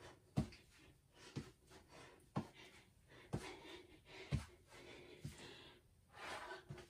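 Footfalls of a person marching in place with knee lifts, a dull thump about once a second, with soft noise between the steps.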